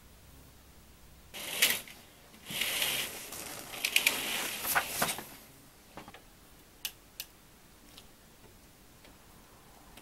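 Rustling and handling noises in a quiet room: two bursts of rustling with sharp clicks in them, then a couple of single clicks about seven seconds in.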